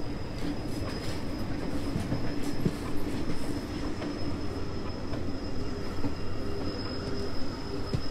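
Train running along the track: a steady rumble of the wheels on the rails with a thin, steady high whine and a few faint clicks.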